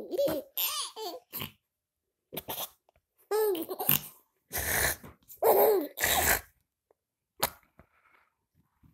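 A baby laughing in a series of short, breathy bursts with pauses between them.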